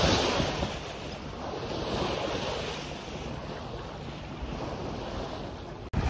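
Water washing along the bow of a sailboat under way through light chop, with wind gusting on the microphone. The wash swells near the start and again about two seconds in.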